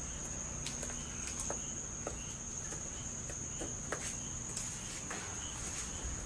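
Insects, such as crickets, trilling in one steady high-pitched chorus, with a few faint scattered clicks and a low rumble underneath.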